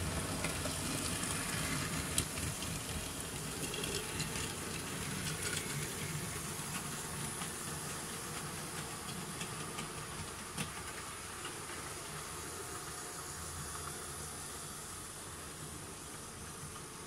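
Model train running on the layout: the locomotive's motor and the wheels clicking over the rail joints, with a steady hiss. The sound fades as the train moves away, and the clicks die out after about ten seconds.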